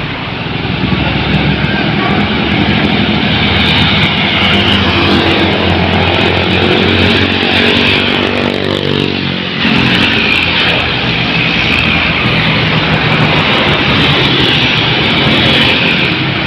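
Buses and other heavy traffic passing close on a busy road, with loud, continuous engine and tyre noise. About eight to nine seconds in, one vehicle's sound sweeps down in pitch as it goes past.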